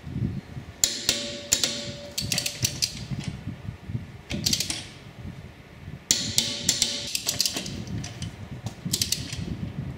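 Torque wrench and socket on car wheel nuts as they are torqued down: about six short runs of sharp metal ratchet clicks, a second or two apart, over a low background hum.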